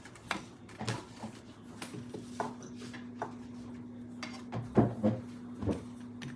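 Plates, stainless steel bowls and steel tumblers being set down on a dining table: a string of short clinks and knocks, the loudest about three quarters of the way through. A steady low hum runs underneath.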